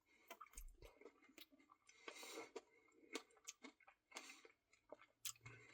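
Faint eating sounds: soft chewing and scattered small mouth clicks from a mouthful of ice cream with cookie dough pieces.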